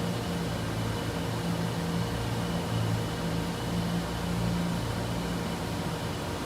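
Froriep CNC vertical boring mill running under power: a steady machine hum with a low drone that swells and fades, over a faint steady high whine.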